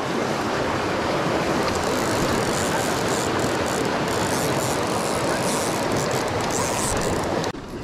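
Rushing creek water running fast over rocks, with the mechanical whirr of a fishing reel being worked as a hooked salmon is played. It drops off suddenly near the end.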